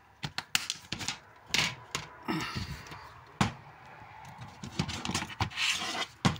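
Plastic DVD cases being handled: an irregular string of sharp clicks and knocks with rustling between them.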